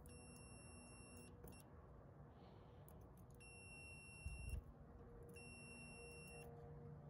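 A Fluke digital multimeter's continuity beeper sounds faintly three times, each a steady high beep about a second long. The beep signals that the probes have found a complete path through the tinfoil. There is a short low thump about four seconds in.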